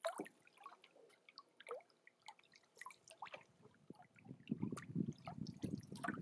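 Lake water lapping and dripping at the shoreline, with faint scattered drips. From about four seconds in, a series of splashy strokes from a canoe paddle dipping and pulling through the water as the canoe passes close by.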